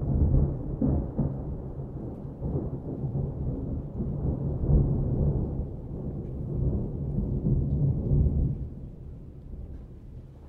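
Low, rolling rumble of thunder that swells and ebbs, then dies away over the last couple of seconds.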